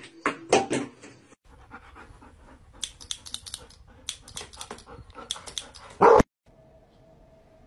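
Dog panting in quick runs of short breaths, with pauses between them. A few sharp knocks come in the first second, and one loud short sound about six seconds in.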